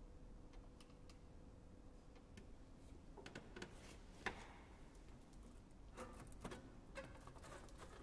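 Near silence: a faint held tone fades away over the first couple of seconds, then a scatter of soft clicks and taps follows, the sharpest about four seconds in.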